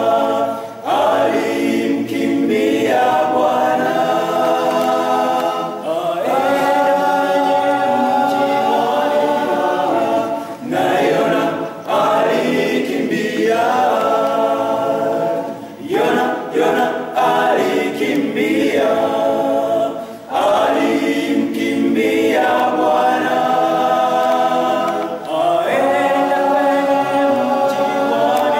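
Men's a cappella choir singing a hymn, sung in phrases of a few seconds with short breaks between them.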